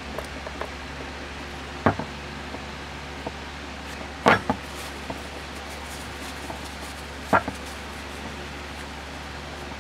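A few sharp knocks and clicks of parts or tools being handled and set down during brake caliper work, the loudest about four seconds in, over a steady low hum.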